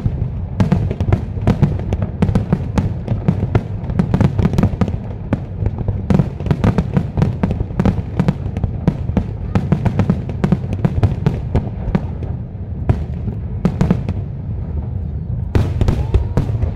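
Fireworks display: a dense, unbroken barrage of crackles and bangs from aerial shells and waterfront fountains.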